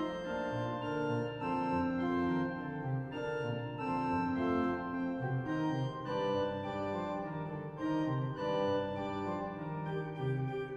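Sampled pipe organ of the Eisenbarth organ in Friesach, played through Hauptwerk, sounding a fugue: several voices in held and moving notes over a bass line.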